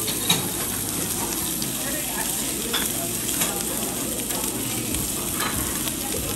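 Pork belly (samgyeopsal) sizzling steadily as it grills, with a few sharp clicks now and then.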